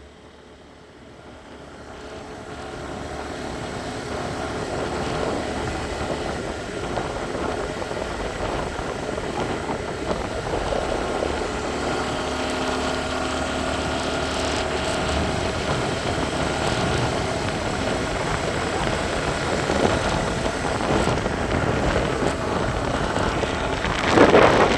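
A vehicle's engine running under a steady rushing of wind on the microphone, swelling over the first few seconds and then holding steady.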